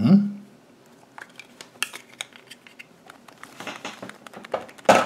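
Thin foil wrapper of a Kinder Surprise chocolate egg crinkling as it is peeled off, with scattered small clicks and taps of handling. A louder clatter comes near the end as the yellow plastic capsule inside is handled.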